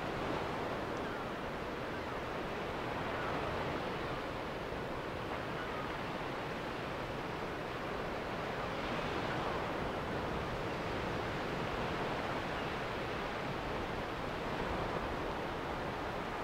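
Ocean surf on a rocky shore, mixed with wind. It is a steady rush that swells and eases every few seconds.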